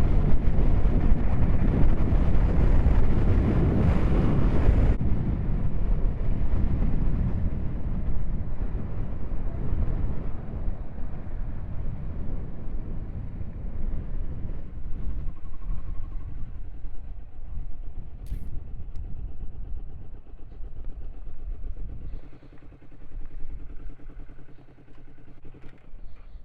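Motorcycle riding with wind rushing over the microphone. The wind cuts out about five seconds in as the bike slows, the engine grows quieter, and it settles to a steady low idle near the end.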